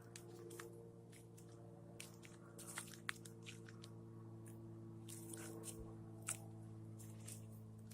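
Faint, irregular crunching and clicking over a steady low hum.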